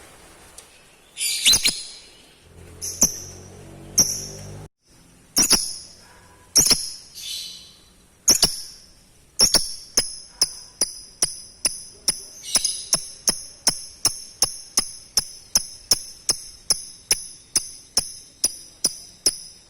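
High-pitched bird chirps: a few single, spaced calls, then from about halfway a steady, even train of sharp chirps about two a second.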